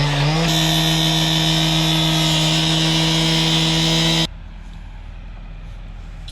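Handheld cut-off saw running at high speed as its wheel grinds through a steel gas pipe, with a high hiss over the motor note. The motor sags briefly under load at the start, recovers and holds steady, then the sound cuts off suddenly about four seconds in.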